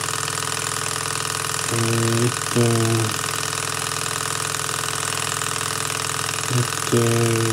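PM Research Peanut Rider hot-air (Stirling) engine running steadily, flywheel turning at an even speed.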